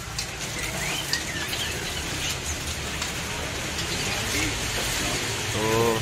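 Caged songbirds chirping now and then over a steady hiss and low hum, with a man's voice starting near the end.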